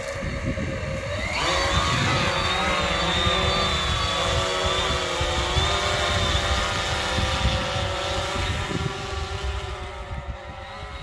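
Condor fishing drone's motors and propellers spooling up from idle about a second in and lifting off with a high, many-toned whine, then running steadily as it climbs away towing a baited fishing line, fading a little near the end.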